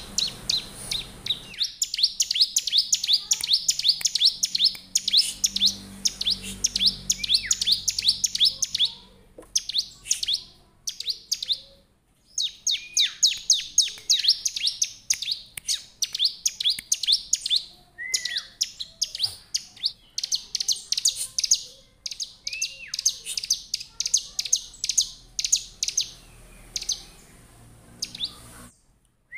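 Bar-winged prinia (ciblek) singing in rapid runs of high, sharp repeated chirps, many notes a second, broken by a few short pauses. A few lower down-slurred notes are mixed in.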